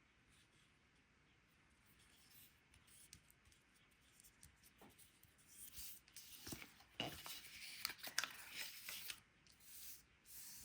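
Faint rustling, rubbing and light taps of cut cardstock pieces being handled and slid across a work surface, growing busier about halfway through.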